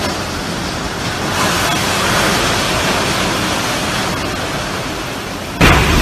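Typhoon wind and wind-driven rain: a steady rushing roar that swells about a second in. Near the end it jumps suddenly louder and rougher.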